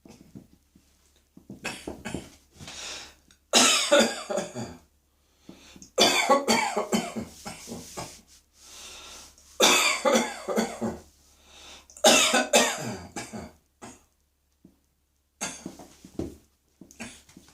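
A person in a coughing fit: about six bouts of harsh, loud coughing, each a second or two long, with short pauses between them.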